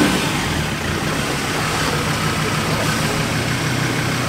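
Ford Ranger ute's engine running steadily at low revs as the truck crawls slowly through deep ruts.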